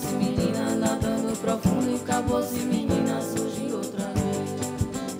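Live music: singing over strummed guitar and percussion with a steady beat.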